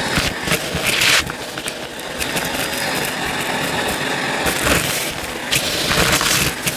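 Bissell CleanView upright vacuum running steadily while it sucks up dry, crunchy debris, which crackles and rattles through it about a second in and again in a longer stretch from about four and a half seconds.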